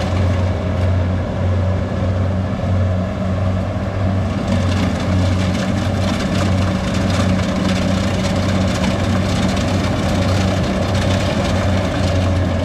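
Kubota DC70 combine harvester's diesel engine running steadily with a low, even hum as the machine harvests rice and crawls through wet mud.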